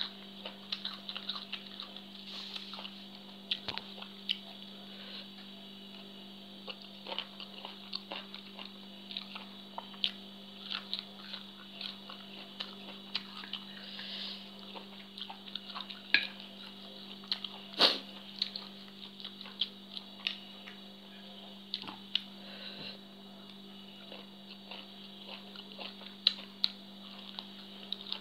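Close chewing and mouth sounds of a person eating spicy papaya salad with raw long beans, with scattered small clicks and clinks, the loudest about eighteen seconds in, over a steady background hum.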